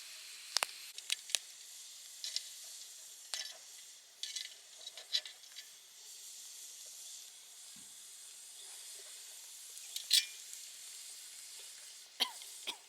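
Wood campfire crackling: a steady hiss broken by irregular sharp pops and snaps, the loudest about ten seconds in.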